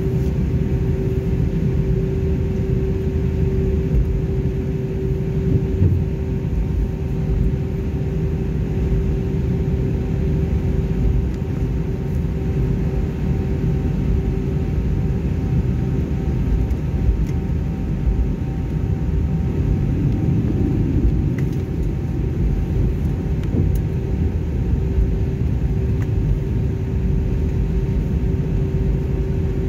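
Cabin noise of an Airbus A320 taxiing: a steady low rumble of the engines at taxi power and the wheels rolling on the taxiway, with a constant hum running through it.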